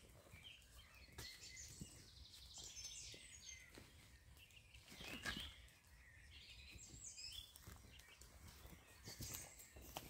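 Faint woodland ambience with birds chirping and calling at intervals. About five seconds in comes a brief, louder rustle and knock as a backpack is set down on the ground.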